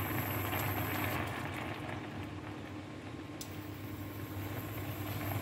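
Chicken adobo simmering in its vinegar sauce in a nonstick wok, a steady crackling bubble over a low hum.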